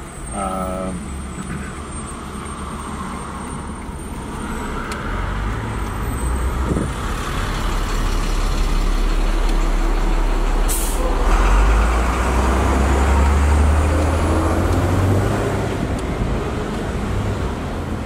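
Heavy diesel vehicle running close by, its deep engine rumble building through the middle and then easing off, with a short sharp air-brake hiss about eleven seconds in. A brief squeal sounds right at the start.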